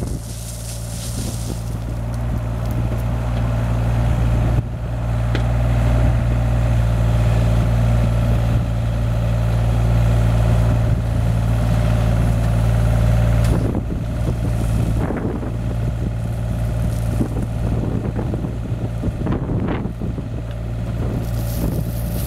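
Hyundai 35Z-7 mini excavator's diesel engine running with its hydraulics working as the bucket digs and lifts gravel. The engine note builds, steps up about four and a half seconds in and holds under load, then eases off around thirteen seconds, followed by scattered knocks and rattles.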